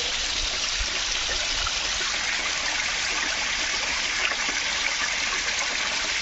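Water running over rocks in a stream bed, a steady rushing hiss.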